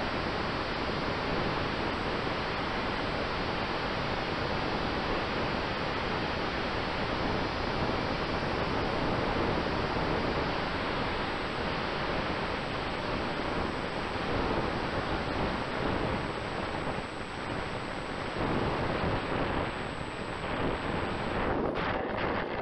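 Steady rushing wind noise on the onboard camera microphone of a large-scale model aircraft in flight, with a faint steady whine underneath. Near the end the rush turns rougher and bumpy as the model touches down and rolls across the grass.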